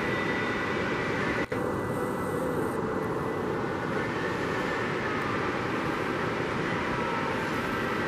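Pacific surf breaking on a sandy beach: a steady wash of waves. The sound drops out for an instant about a second and a half in.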